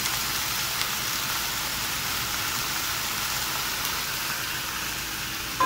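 Steady sizzling of meat frying in a pan on a gas stove, while water is poured from a small pot into a pot of sautéed rice to start it cooking. A brief knock near the end.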